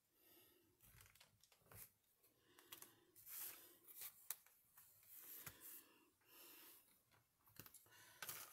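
Faint rustling and handling of paper and card on a desk, with a scatter of light clicks and taps as craft pieces are picked up and set down.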